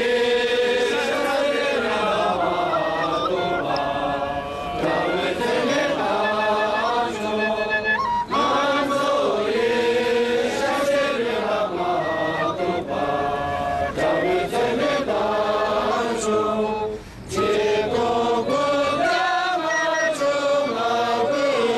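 Melodic vocal chanting, with held, gliding notes and short pauses between phrases.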